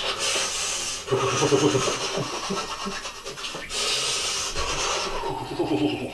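A man's hissing breaths through his mouth and low wordless moans as he reacts to the cold of an ice bath. There is a loud hissing breath at the start and another about four seconds in, with moaning between them.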